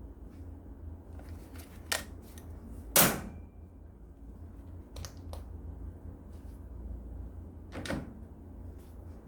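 Hand tools being handled and set down: a few separate clicks and knocks, the loudest about three seconds in with a brief ring.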